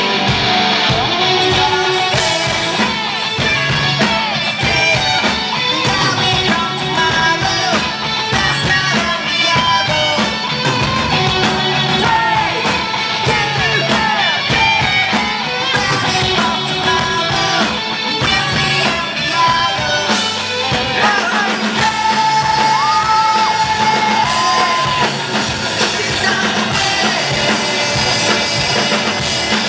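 Live rock band playing: a male lead vocal sings over electric guitar and a driving drum kit, with a long held high note about three-quarters of the way through.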